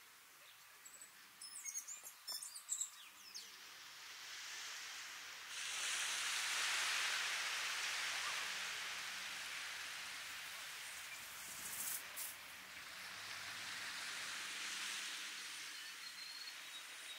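Gentle waves washing onto a sandy beach: a surge of surf hiss about five seconds in that slowly fades, and a smaller wash later on. A few short bird chirps sound in the first few seconds.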